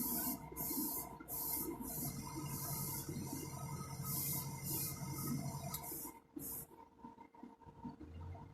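Airbrush spraying paint in a quick run of short hissing bursts, about ten of them, as the trigger is pressed and released. They stop a little after six seconds in. A steady hum runs underneath.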